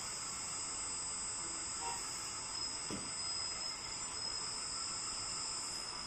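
A LESU Aoue-LT5 1/14 RC hydraulic skid-steer loader running, a steady high-pitched whine over a hiss as its loader arm and bucket are worked. A short falling tone comes about three seconds in.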